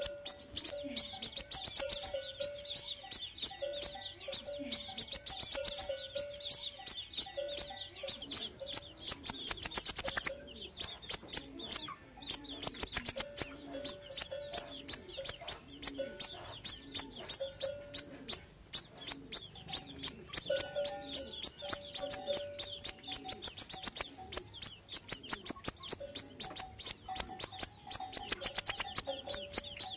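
Sunbird song: long runs of very rapid, high-pitched ticking chips and trills, broken by a few short pauses.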